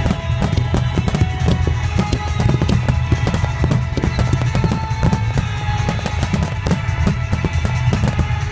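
Finale barrage of aerial firework shells bursting in rapid, unbroken succession, several bangs a second over a continuous low rumble. Music plays underneath.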